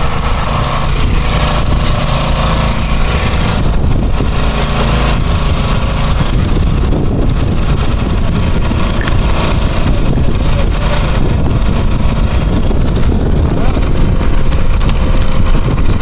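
Strong stormy wind buffeting the microphone: a loud, continuous low rumble with a rushing hiss over it.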